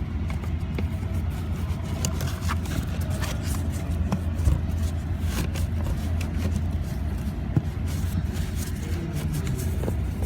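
Scattered scrapes and clicks of a new pleated cabin air filter being squeezed and pushed into its housing in a Ford Focus, over a steady low hum.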